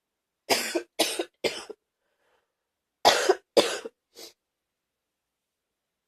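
A person's wet, gaggy cough: three quick coughs in a row, then after a short pause two more and a weaker last one.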